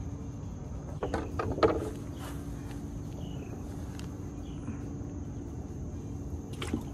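Outdoor ambience with a steady high insect drone over low background noise, and a few brief knocks and rustles about a second in.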